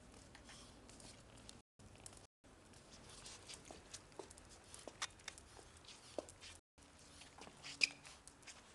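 Faint, scattered ticks and taps of a miniature pinscher puppy's claws and paws on a stone-tiled floor, with one sharper, louder tick near the end.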